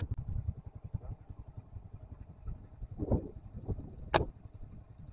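Low rumbling noise throughout, with a sharp click at the start and a short, sharp snap about four seconds in, after two softer noises just before it.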